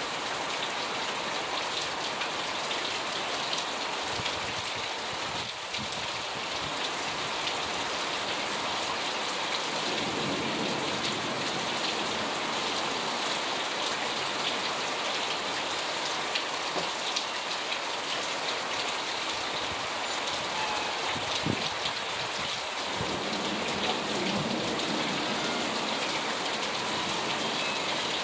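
Heavy rain pouring steadily onto parked cars and pavement in a summer rainstorm.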